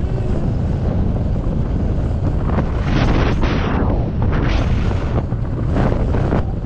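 Wind buffeting an action camera's microphone as a skier runs downhill at about 25 km/h, a steady low rumble. Skis hiss and scrape over the snow in several louder swells as they carve through turns.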